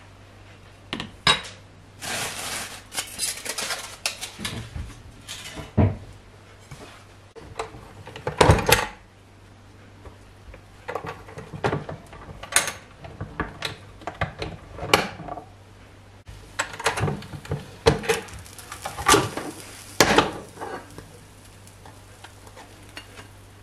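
Kitchen clatter while preparing food: a metal spoon clinking and scraping against a ceramic bowl, plastic bag rustling, and the lid of a sandwich toaster being pressed and opened, with plates and utensils knocking. The sounds come as separate sharp knocks and short scrapes, one after another.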